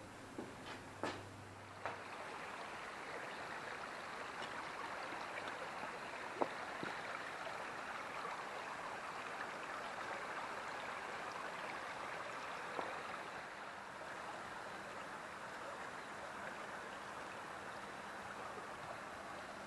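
River water running: a steady, even rush of flowing water. A few light clicks come in the first two seconds, and a single sharp tick about six seconds in.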